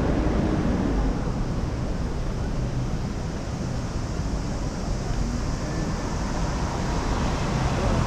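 Steady city street ambience with a strong low rumble and no distinct events.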